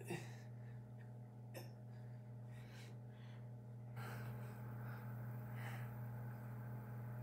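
A man breathing hard in short gasps from the effort of doing push-ups, one breath about every second and a half, over a steady low hum.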